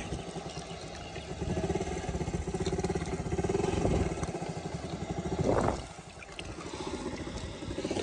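An engine running with a steady, pulsing note. About five and a half seconds in there is a brief rising-and-falling sound, and the engine sound is quieter after it.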